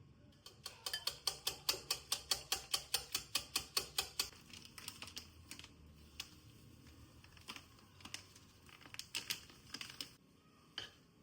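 A fast, even run of light, sharp taps, about five or six a second for a few seconds, followed later by a handful of scattered single taps.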